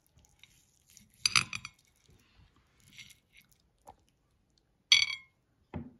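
Metal knife and fork clinking against a ceramic plate while cutting a stuffed cabbage roll: two ringing clinks, about a second in and again near the end, with fainter taps and scrapes between.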